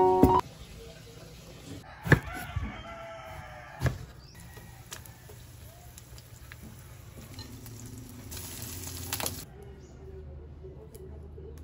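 A rooster crows once about two seconds in, starting sharply; a short click follows a little later, and a brief hiss comes near the end over a faint steady hum.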